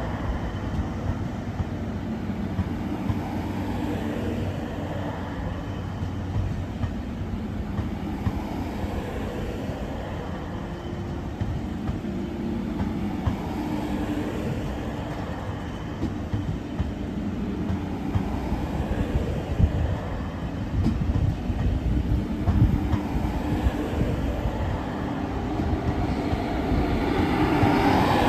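A train running past on the tracks: a continuous rumble with wheels clattering over the rails, the clatter thickest in the second half, growing louder near the end.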